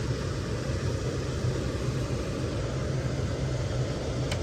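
Electric-heat air handler unit running: a steady low hum and rush of the blower, with a faint click near the end.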